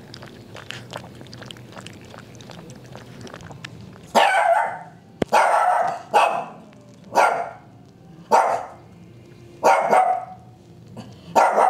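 A dog barking, about seven sharp single barks roughly once a second, starting about four seconds in after a stretch of faint small ticks.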